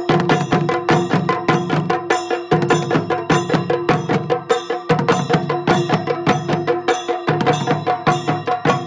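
Chenda melam: several Kerala chenda drums beaten with sticks in a fast, steady rhythm, with small hand cymbals (ilathalam) ringing along.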